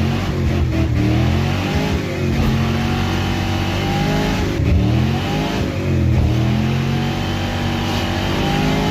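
Car engine revving loudly, its pitch climbing and falling back several times.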